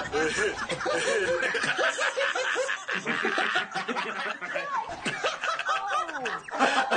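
Four men laughing together, overlapping snickers and chuckles that keep going without a break.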